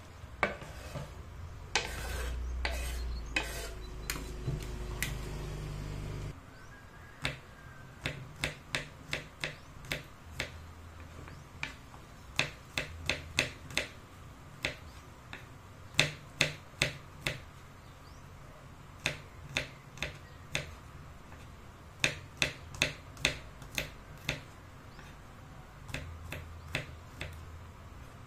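Kitchen knife slicing garlic cloves on a bamboo cutting board: sharp, irregular knocks of the blade striking the wood, often several in quick succession. For the first six seconds a low hum and a few scrapes and knocks sit underneath as diced onion is scraped off the board, and the hum stops suddenly.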